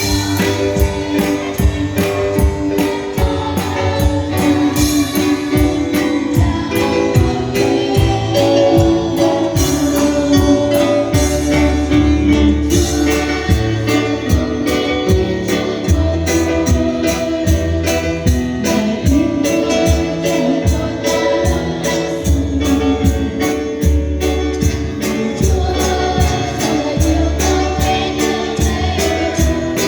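A Christian worship song sung over a band accompaniment, with a steady beat throughout.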